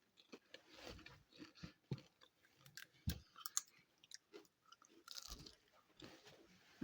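A person chewing a mouthful of popcorn close to the microphone: faint, irregular crunches, one louder bite about three seconds in.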